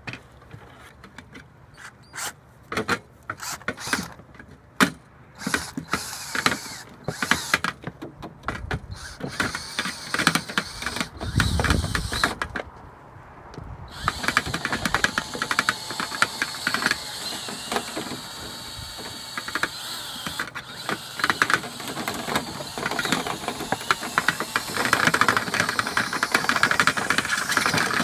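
Dryer vent being cleaned out: a series of knocks and clatter of equipment against the vent, then from about halfway a power tool runs steadily with a rattle as the clogged lint is cleared.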